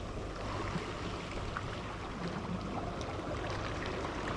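Steady wash of water at the shore, with a faint low hum underneath and a few faint ticks.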